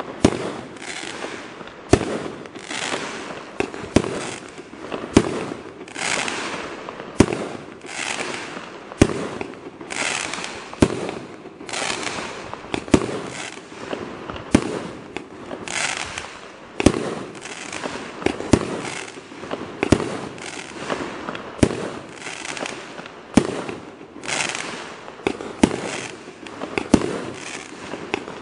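Celtic Fireworks Lunar Plume 25-shot barrage cake firing: sharp launch shots about once a second, each followed by its burst and the crackling of dragon-egg stars.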